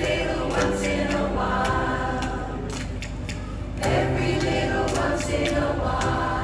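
Choir singing held, harmonised notes in two long phrases, the second beginning a little under four seconds in.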